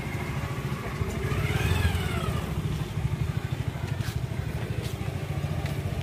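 Small commuter motorcycle engine running at low speed as it is ridden slowly round a tight circle, with a steady pulsing rumble. About a second in the throttle is opened briefly, so the pitch rises and falls back.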